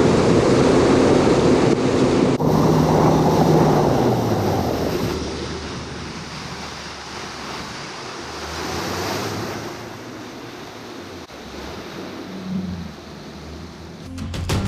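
Wind buffeting the microphone and water rushing under the hull of a bass boat running at speed. About three to four seconds in, the outboard motor's note slides down as it throttles back. The sound settles to a quieter low engine hum with wind and chop. Music starts near the end.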